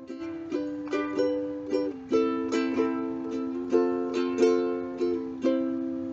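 Ukulele played in a slow picked pattern, each plucked note ringing on over a held lower note, easing off near the end.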